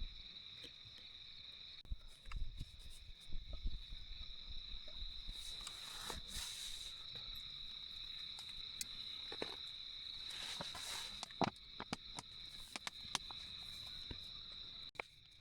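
Insects chirring in one steady, high, continuous note, with scattered clicks, low thumps and brief rustles of handling over it.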